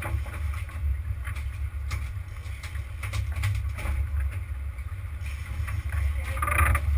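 Steady low rumble aboard a sportfishing boat at sea, with wind buffeting the microphone and a few scattered knocks. A brief louder hiss comes near the end.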